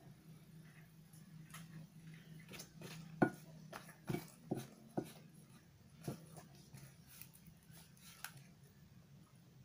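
Metal spoon clicking and scraping as it scoops rice from a paper food wrapper, with the paper rustling. A handful of sharp clicks come between about three and six seconds in, with one more near the end, over a low steady hum.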